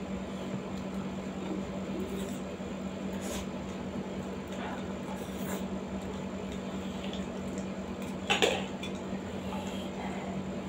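Eating sounds: chewing and slurping spicy ramen noodles, with a fork clinking against steel plates. The sharpest clink comes about eight seconds in.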